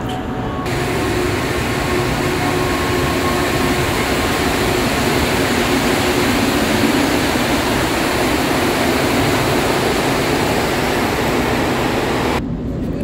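Montreal Metro rubber-tyred train running, a loud steady rumble with faint whining tones in the first few seconds. It starts abruptly just after the beginning and cuts off sharply near the end.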